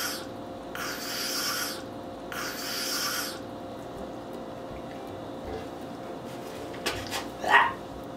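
A person hissing air through clenched teeth three times, about a second each, in disgust at a bad taste. A click and a short mouth sound follow near the end.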